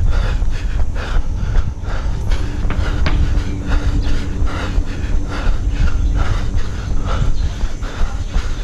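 A runner's footsteps on brick paving, about three strides a second, over a heavy low rumble from wind and movement on the body-worn camera's microphone.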